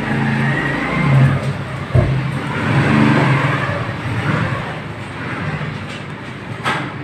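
A motor vehicle's engine passing, swelling and fading twice, with a sharp thump about two seconds in and a click near the end.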